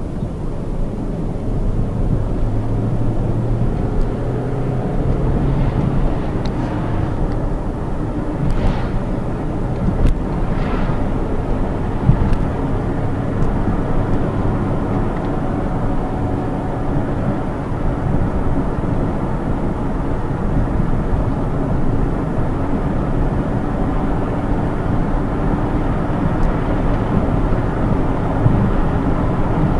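Hyundai Tucson JM's 2.0-litre petrol inline-four engine heard from inside the cabin while driving, with steady low tyre and road rumble. A steady engine tone stands out for a few seconds near the start as the car pulls away.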